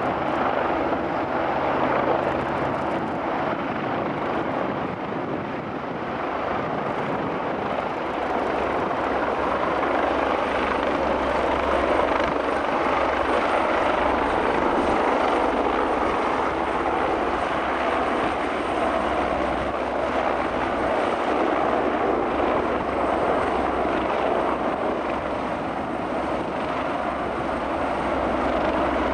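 Airbus H175 helicopter hovering low, its rotors and twin turbine engines running in a steady, loud wash of noise with a low hum beneath.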